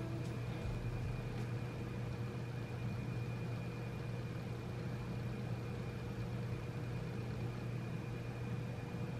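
Steady low hum with a faint, thin high tone above it and light hiss: constant background room noise.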